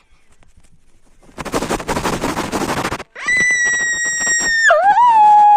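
A 'you lose' sound effect. A loud crackling noise burst lasts about a second and a half. A high, steady electronic-sounding tone follows, then drops with a scoop to a lower, wavering note, the start of a descending sad-trombone-style fail jingle.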